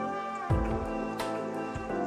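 Instrumental background music with sustained notes; a deep low note comes in sharply about half a second in.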